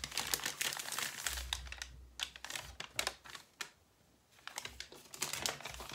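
Sheets of paper being handled and unfolded: a run of quick rustles and crinkles, dying down for a moment in the middle before picking up again near the end.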